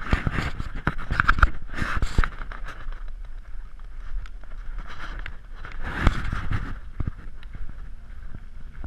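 Slow off-road driving on a rocky dirt track: tyres crunching over gravel and stones, with knocks and bursts of rough noise, loudest in the first couple of seconds and again about six seconds in.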